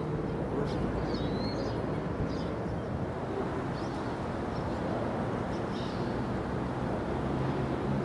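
Steady rumble of city traffic, with a few short, high bird chirps over it.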